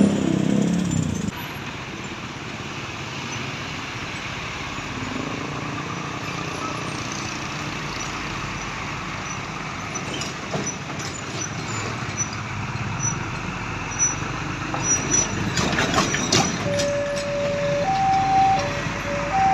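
Steady roadside traffic noise from passing trucks, with a heavy vehicle loud for the first second. Near the end a multi-tone telolet bus horn starts playing a simple tune on two alternating notes.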